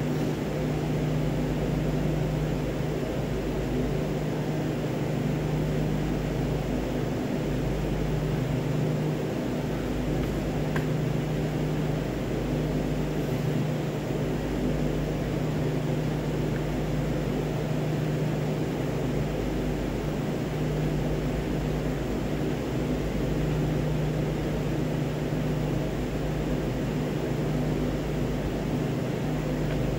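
Steady mechanical hum of room machinery: a constant low drone over an even fan-like rush, unchanging throughout, with a faint tick about eleven seconds in.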